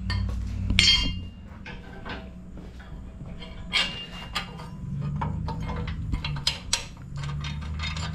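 Scattered metal clinks and knocks of bolts and a steel winch mounting plate being handled and fitted under a truck's front end, over a low steady hum.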